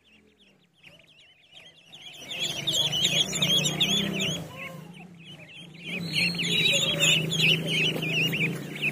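A flock of ducklings peeping together, many quick high chirps overlapping. The peeping is faint at first, swells from about two seconds in, dips briefly near the middle and swells again, with a low steady hum underneath.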